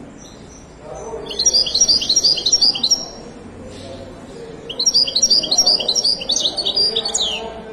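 Caged European goldfinch singing: two phrases of rapid, tumbling twittering notes, the first starting about a second in, the second longer and starting near the fifth second.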